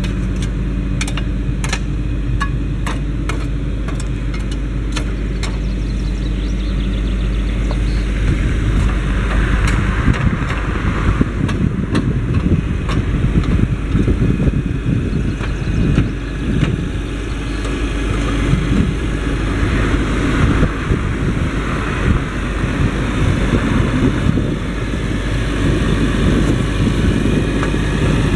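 Challenger MT765C tracked tractor's diesel engine running steadily at a standstill, with a run of sharp clicks in the first few seconds. From about ten seconds in the sound turns louder and rougher as the tractor moves off pulling the Väderstad TopDown cultivator through the soil.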